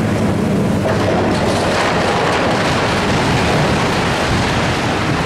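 Steel crane bay and its 100-ton overhead bridge crane collapsing: a long, steady, loud crashing rumble of buckling steel and falling debris, with no single standout bang.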